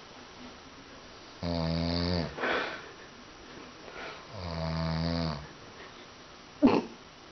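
A man snoring heavily: two long, low, droning snores about three seconds apart, the first followed by a short breathy exhale. Near the end comes a sudden short burst of breath, the loudest sound.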